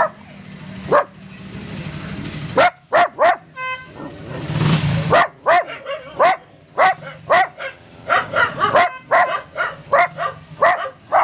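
Small shaggy dogs barking: a couple of sharp yaps at first, then, from about two and a half seconds in, a rapid, unbroken run of short, high yaps.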